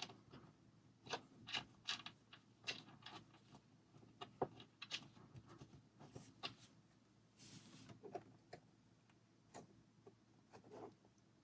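Plastic Lego bricks clicking and tapping as they are handled and fitted together, in an irregular run of small clicks with a short rustle about seven seconds in.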